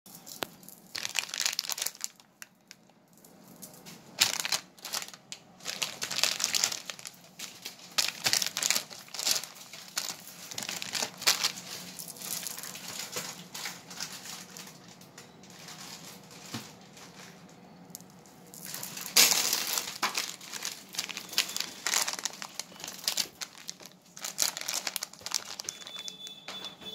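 Clear plastic packets crinkling and rustling in irregular bursts as they are picked up and handled.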